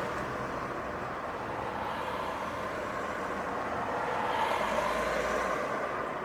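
City street traffic: road noise from passing vehicles, fading at first, then swelling as a vehicle passes about four to five seconds in, and easing off again near the end.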